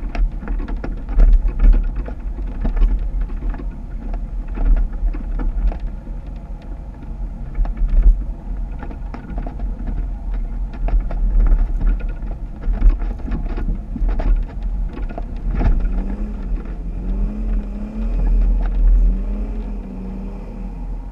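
Off-road Jeep running over rough ground with a heavy low rumble and frequent knocks and clatters. In the last few seconds the engine note rises and falls as the throttle is worked.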